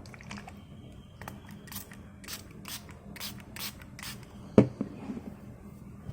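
A small pump-spray bottle of screen-cleaning solution spritzing about six times in quick succession, roughly twice a second, followed by one sharp knock.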